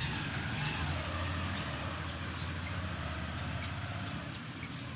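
Steady outdoor background noise with a low hum, over which short high chirps sound every half second or so.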